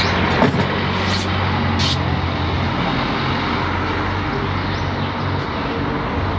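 A steady low rumble with hiss, with a few short clicks about a second and two seconds in.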